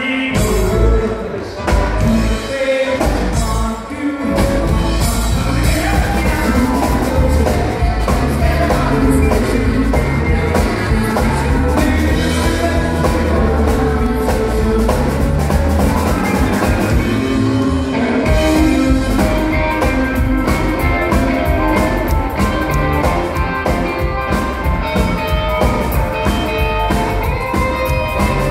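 Live band playing over a PA: male lead vocal over drum kit, electric guitar and keyboard, with a woman singing backup. A few short stops in the first seconds, then a steady, even beat.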